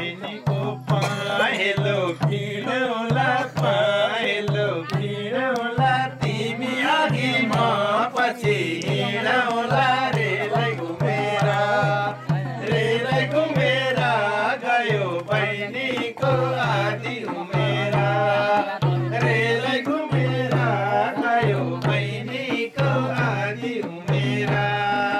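Folk singing to a hand drum: a voice carries a bending melody over a steady, repeated low drum beat that keeps going without a break.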